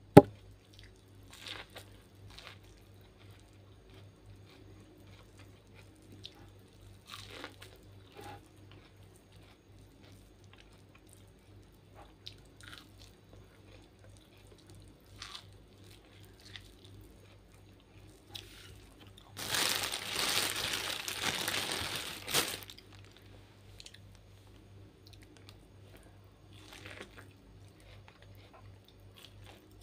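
Hands handling boiled corn at a table: a sharp knock at the very start, then scattered faint clicks and rustles, and a loud crinkling rustle lasting about three seconds roughly two-thirds of the way through.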